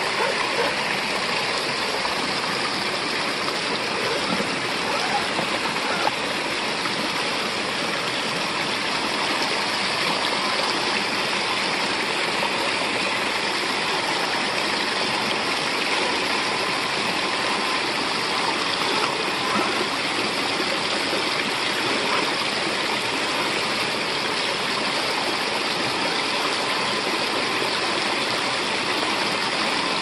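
Creek water rushing steadily down a small rocky waterfall, an even, unbroken splashing.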